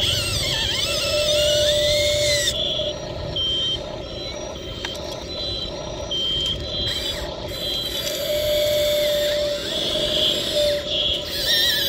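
Radio-controlled model excavator's small electric motors and gears whining and rattling as the arm digs, lifts and swings. The whine comes in stretches that start and stop as each movement begins and ends.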